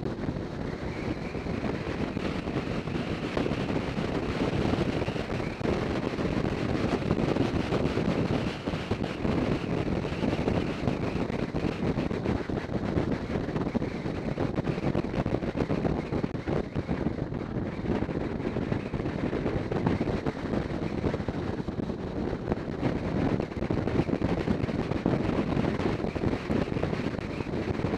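Steady wind rush over the microphone of a camera riding on a moving motorcycle, with the bike's engine and road noise underneath.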